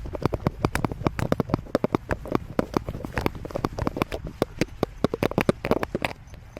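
Rapid, irregular clicking and tapping, many times a second, from a dog on the move carrying a camera strapped to its harness.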